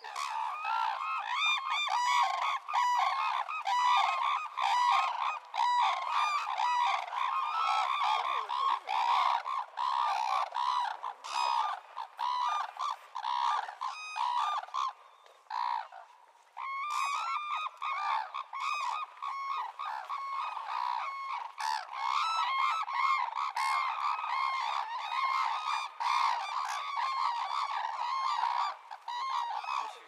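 A group of red-crowned cranes calling: many high-pitched honking calls overlapping in a steady chorus, with a short lull about halfway through.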